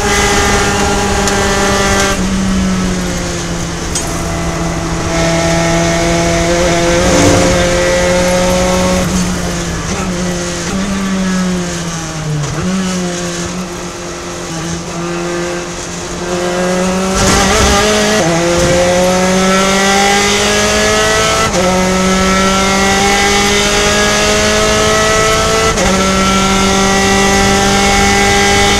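Gen3 Spec Racer Ford's engine heard from the cockpit. It winds down through several downshifts under braking into a slow corner, then pulls back up through the gears, its pitch rising and dropping sharply at three upshifts.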